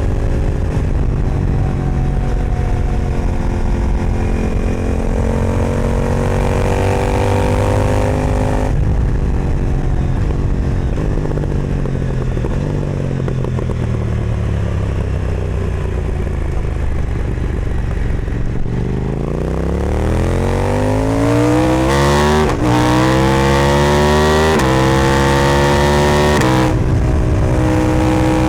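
KTM 990 Duke parallel-twin through an Austin Racing exhaust: the engine pulls with rising pitch, then the throttle closes about nine seconds in and the pitch falls slowly as the bike slows. Near the end it accelerates hard through three quick upshifts, each a brief dip in pitch.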